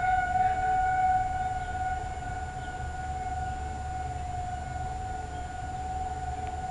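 Federal Signal 2001-SRN outdoor warning siren sounding its steady tornado-warning alert: one unwavering pitch with a fainter overtone above it, a little louder in the first second or so.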